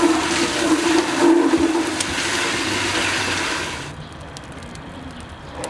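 Water pouring or rushing in a steady stream, which stops about four seconds in.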